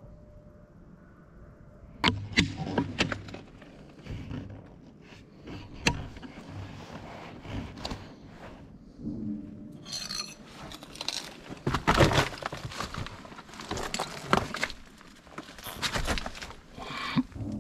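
Footsteps over rubble and broken debris: irregular crunches, knocks and clinks, loudest about two seconds in and again near the middle.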